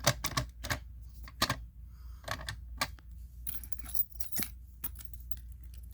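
Irregular sharp clicks and rattles of a Simplex manual fire alarm pull station being handled.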